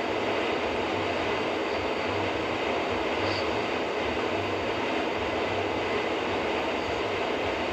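Steady road noise heard inside a moving car on a wet highway: tyre hiss from the wet road surface over the low hum of the car.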